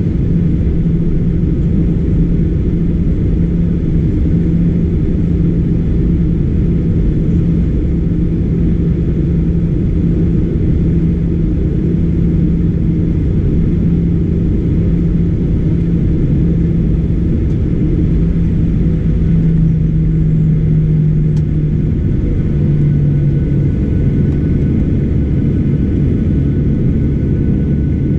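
Cabin noise of a Boeing 737-800 moving on the ground with its CFM56-7B engines at idle, heard from inside: a steady low rumble with a steady hum that drops slightly in pitch about 20 seconds in.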